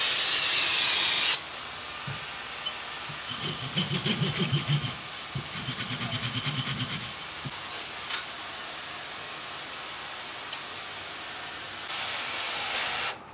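An aerosol can sprays onto a row of engine head studs for about a second and a half, then the studs are rubbed and rolled in a cloth towel. Near the end an ultrasonic parts cleaner runs with a loud hiss and cuts off suddenly as its timer runs out.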